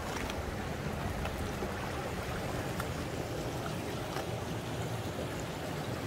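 Shallow mountain stream running over stones: a steady rush of water.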